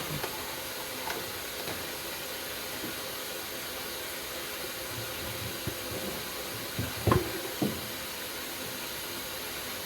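Steady hiss with a few short knocks, the loudest about seven seconds in.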